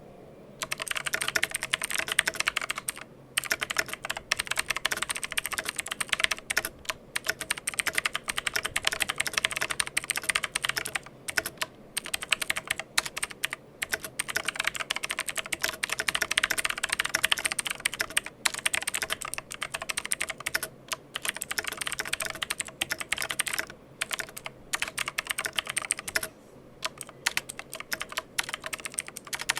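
Fast typing on a mechanical keyboard: a dense run of key clicks starting about half a second in, broken by short pauses several times.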